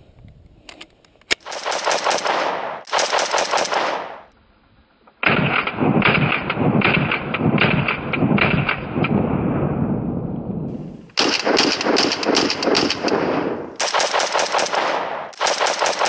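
Arsenal SGL31-94, a semi-automatic AK-74-pattern rifle in 5.45x39mm, fired in rapid strings of shots. Two short strings come in the first few seconds. After a brief pause there is a longer string of about five seconds, then several more short strings near the end.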